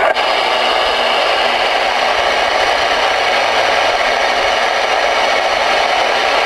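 Voyage VR-9000 ten-meter radio's speaker hissing with steady, loud static, the open-channel noise left when the incoming transmission drops off just at the start.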